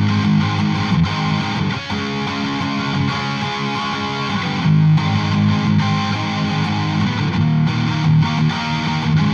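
Electric guitar, a Gibson Les Paul, strumming overdriven chords through a Vox VT20X Valvetronix modeling amp.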